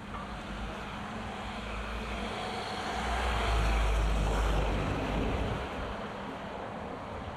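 A road vehicle passing by on a city street: its engine rumble and tyre noise swell to a peak about four seconds in, then fade away.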